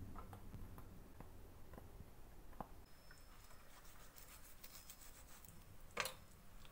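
Quiet handling sounds of a whole fish being cleaned on a steel plate: faint clicks and scrapes from kitchen scissors and a knife, with one louder scrape about six seconds in.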